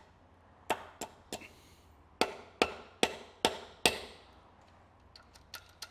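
A hammer striking the timing chain and camshaft sprocket of a Toyota 1.4 VVT-i engine to knock a snapped timing chain off. It lands three lighter blows, then five harder ones about two a second, each ringing briefly, and a few faint taps near the end.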